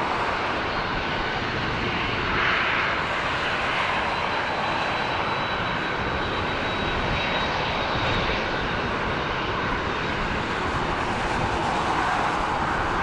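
Jet airliner engines: a steady rushing noise with a faint high whine.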